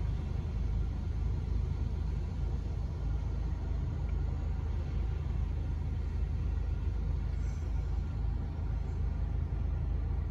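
Steady low rumble of cars and trucks driving slowly through a flooded roadway, tyres pushing through standing water.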